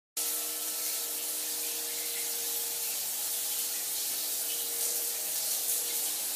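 Shower running: a steady hiss of water spray, with a faint steady hum underneath.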